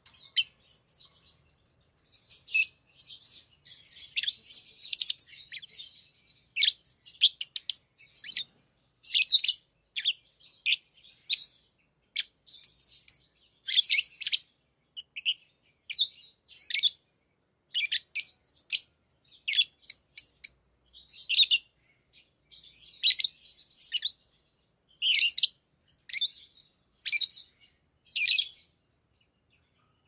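Pet lovebirds chirping: short, sharp, high-pitched calls repeated over and over. A dense run of chatter in the first few seconds gives way to separate chirps about once or twice a second.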